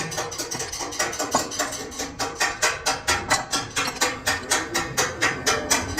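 Rapid, regular sharp metallic knocks, about three a second, keeping an even beat.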